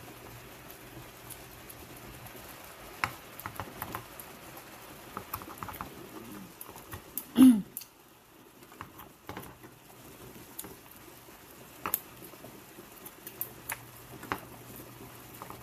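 Longganisa sausages boiling in a shallow frying pan of water: steady bubbling with many scattered sharp pops and clicks. One much louder short burst comes about seven seconds in.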